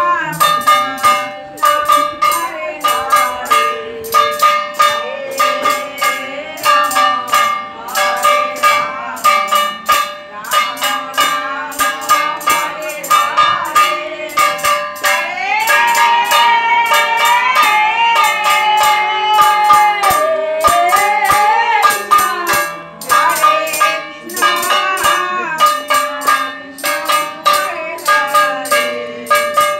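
Devotional kirtan chanting: a voice singing long, gliding phrases over fast, steady jingling hand percussion that keeps an even beat, with one long held phrase in the middle.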